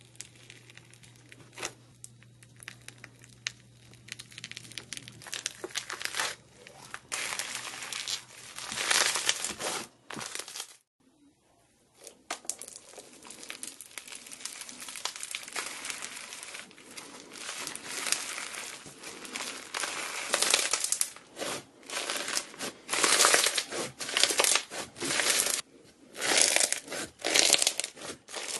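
Foam-bead slime (floam) pressed and squeezed by fingers and hand, its tiny polystyrene beads crackling and crunching in bursts with each press. There is a short break partway through, after which the presses are louder.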